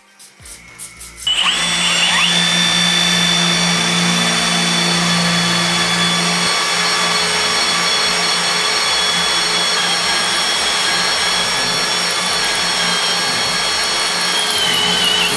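Cordless drill boring into a solid steel bar with an HSS twist bit. The motor starts about a second in and then runs steadily under load with a high whine, which wavers lower near the end.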